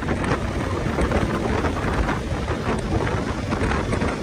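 Loud, rumbling wind buffeting on the microphone while riding a moving bike, with no steady tone standing out.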